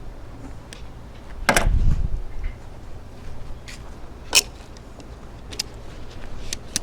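Handling noises of hand work on a lawnmower's fuel hose: a knock about one and a half seconds in, a sharp click a little after four seconds, and light scattered clicks and taps.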